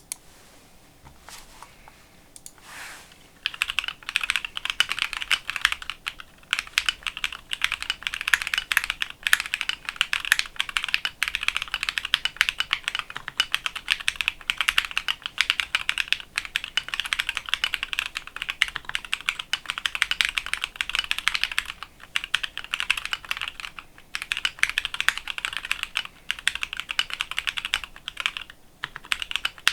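Mechanical keyboard with JWick Red linear switches, mounted plateless on a DZ60 PCB and fitted with Akko ASA-profile keycaps, being typed on fast and continuously. A few single key presses come first, then steady rapid typing starts after about three seconds, with a few short pauses.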